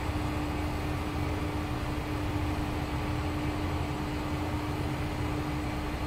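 Steady machinery hum: a low rumble and hiss with one constant humming tone, unchanging throughout.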